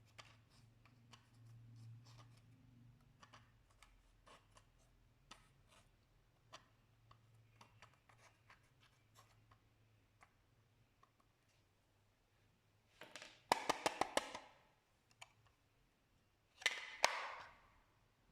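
Slime being squeezed and worked by hand: scattered faint clicks and pops, then two louder bursts of rapid crackling pops near the end.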